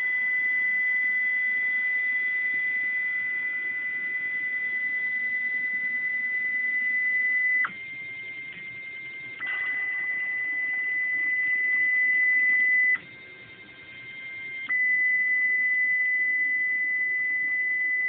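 Stepper motors of a Bluumax CNC router kit moving a pen-plotting carriage: a steady high whine that switches abruptly as moves change, dropping in level twice for a second or two.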